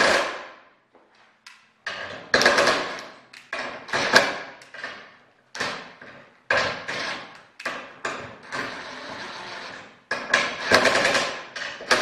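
Cordless impact driver tightening the bolts of an aluminium bar clamp, running in repeated bursts of about a second with short pauses between.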